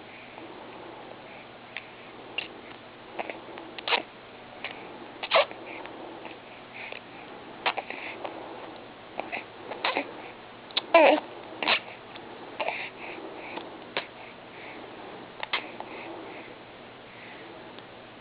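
Eating noises: irregular sharp smacking and crunching clicks of chewing, a few every couple of seconds, with the loudest cluster about eleven seconds in.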